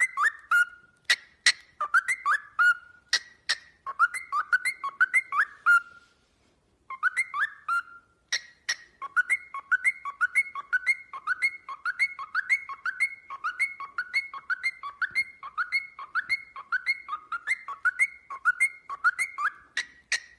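A bird whistling short, rising chirps over and over at about two or three a second, each with a sharp click, broken by a pause of about a second near the middle.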